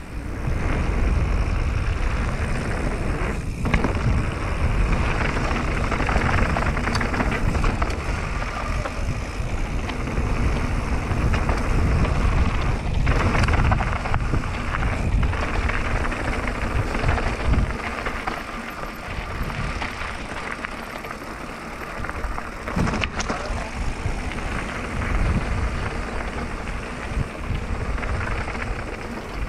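Wind rushing over the action camera's microphone and mountain-bike tyres rolling over loose gravel on a fast descent, with a few short knocks from the bike over bumps.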